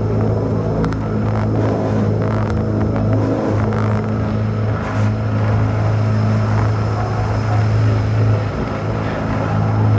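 Tokyo DisneySea Electric Railway elevated train running, heard from on board: a steady low electric hum over rumble, briefly dropping out a few times.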